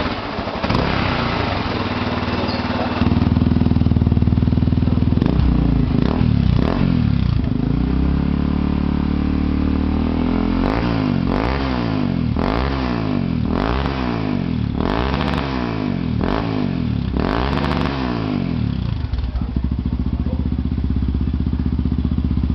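Honda NX 400 Falcon's single-cylinder four-stroke engine running through a Roncar Coyote 2Way aftermarket exhaust. It idles, steps up to a higher steady speed about three seconds in, then is revved in a string of about eight quick blips, a little under one a second. It then settles back to idle.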